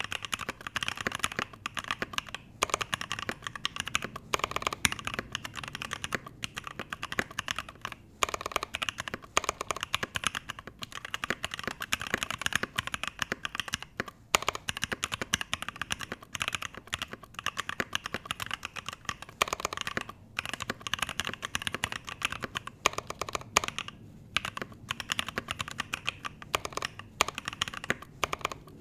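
Steady, fast typing on a Satisfaction 75 mechanical keyboard with stock Alpaca V2 linear switches, a brass plate, no plate or case foam and CRP R4 PBT keycaps, a dense run of key clicks with a few short pauses.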